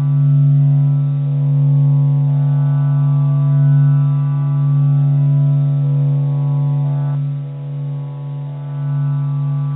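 Steady low droning hum with a stack of overtones, its upper tones slowly shifting and changing about seven seconds in: a sustained drone track presented as the sound of the Sun.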